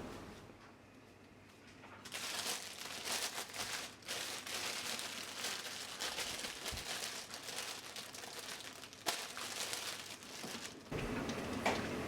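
Plastic packaging crinkling and rustling as it is handled, in irregular crackly bursts that start about two seconds in and stop shortly before the end.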